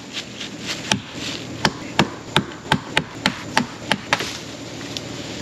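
Wood being chopped: a run of about ten quick, sharp strikes, about three a second, beginning about a second in and stopping about four seconds in.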